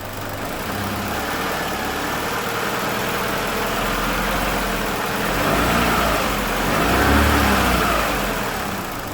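Chevrolet Lacetti 1.8-litre petrol engine being revved with the intake-manifold flap control valve unplugged. The revs build and peak twice around the middle, then fall back toward idle. No rattle comes from the variable-length intake flaps: with the flaps not actuated, their worn shaft bushings are silent.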